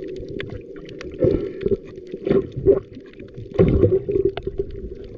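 Motorboat engine droning steadily, with several louder splashing surges of water and wind against the hull, the strongest a little past halfway.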